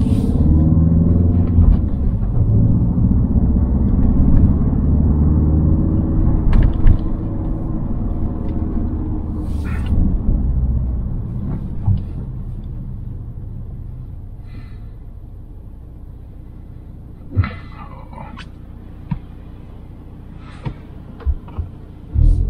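Mountune M330-tuned Ford Focus ST Mk4's 2.3-litre EcoBoost four-cylinder engine with road rumble while driving. The engine note rises and falls through the first dozen seconds, then fades to a quieter steady rumble as the car eases off, with a few short knocks near the end.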